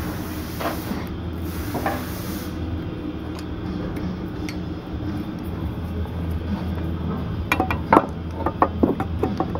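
Hand tools and metal parts clinking and tapping in a quick, uneven run during work on a car's shifter, starting several seconds in. A steady low machine hum runs underneath, with a high hiss that cuts off a couple of seconds in.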